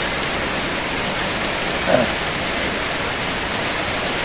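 Heavy rain falling steadily, a constant even hiss of downpour.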